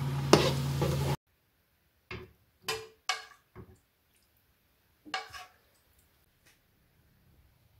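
A steady electric hum from the cooktop while a metal spoon stirs and clicks in the frying pan, cutting off about a second in. Then a metal spoon clinks against a metal pot about five times as sauce is spooned over braised tofu.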